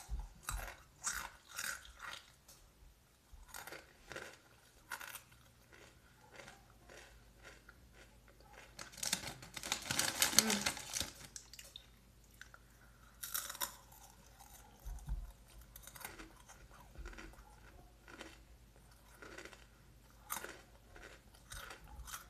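Fritos Flavor Twists Honey BBQ corn chips being crunched and chewed, a run of short crisp crunches with a louder, denser stretch of about two seconds near the middle.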